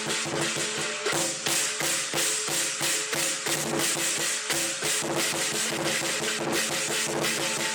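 Lion dance percussion band playing: a big drum beaten rapidly together with clashing cymbals and a ringing gong, in a fast, unbroken rhythm.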